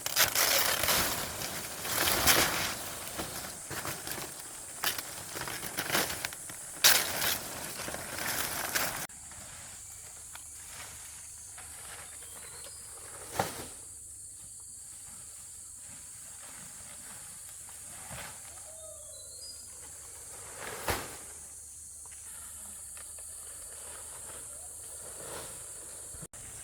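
Loud, irregular rustling and crackling of leafy vegetation being handled, with several sharp strikes. About nine seconds in it cuts to a quieter steady high hiss with two single knocks and a few faint chirps.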